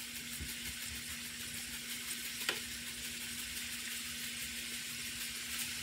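Frozen mixed vegetables (broccoli, cauliflower and carrots) sizzling steadily in oil in a frying pan, with one light click about two and a half seconds in.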